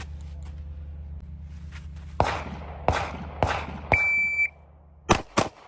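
A few sharp gunshots ring out, then a shot timer's start beep sounds once for about half a second. Right after it come quick 9mm pistol shots from a Glock 26, fired rapidly at one target.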